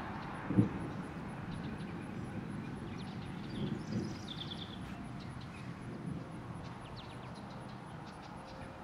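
Outdoor ambience of steady noise with small birds chirping in short quick trills, and one brief low thump about half a second in.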